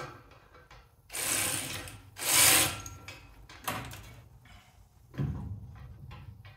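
Socket ratchet clicking in two quick runs, about a second in and again just after two seconds, the second louder, as a 9/16 exhaust nut is worked loose. A few lighter knocks of metal tools follow.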